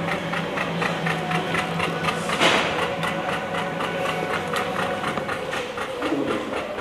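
An engine idling with a steady hum and a fast, even ticking; a short burst of hiss comes about two and a half seconds in.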